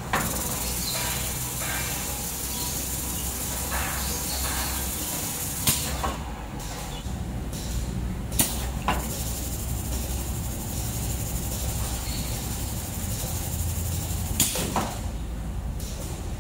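Automatic gluing machine's conveyor belt and rotating brush-roller cleaning device running: a steady low machine hum with a hiss above it. A few sharp clicks come through, at about six, eight and a half and fourteen seconds in.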